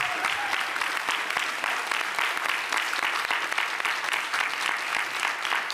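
A crowd applauding, many hands clapping at once at a steady level.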